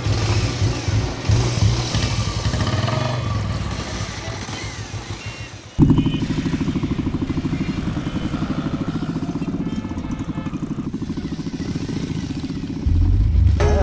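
A small motorcycle-type engine running as the vehicle pulls away. About six seconds in, the sound cuts abruptly to the engine running with a steady, rapid pulsing.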